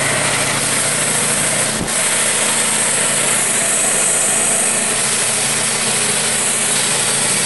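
Band sawmill's engine running steadily, with a single brief knock about two seconds in.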